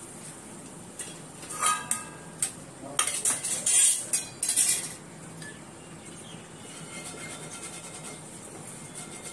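Spatula clattering and scraping on a cast-iron tawa and against a steel plate as a cooked rice crepe is lifted off and set down: a cluster of sharp clinks, some briefly ringing, between about one and a half and five seconds in, then quieter.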